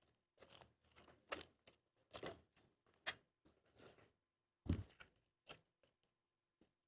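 A faint string of irregular short crunching noises, with one heavier knock about five seconds in.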